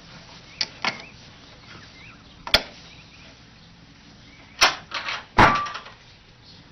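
Cat puzzle box's latch and door knocking and clattering: a few sharp knocks, then a louder cluster of clacks about five seconds in, the last with a brief ring.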